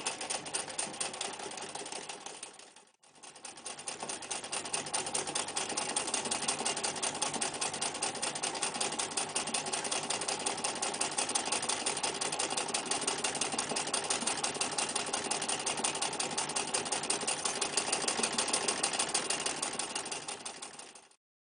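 Necchi Lycia electric sewing machine running at speed, its needle mechanism clicking in a rapid, even rhythm. It slows to a stop about three seconds in, starts up again, builds back to speed and runs steadily until it stops shortly before the end.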